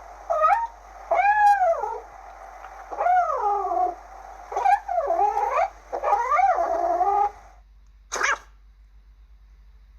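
Kitten meowing repeatedly: a string of drawn-out meows, each rising then falling in pitch, then a short one about a second after the rest.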